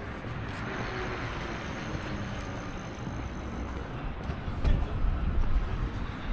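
Outdoor city ambience: a steady rumble and hiss of traffic, with a few low thumps in the second half.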